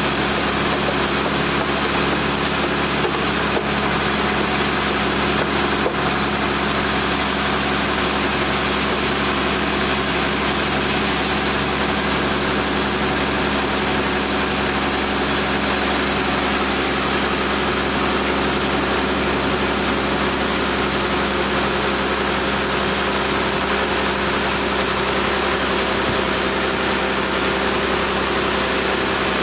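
Sawmill machinery running steadily, a constant hum with a dense hiss and no pauses.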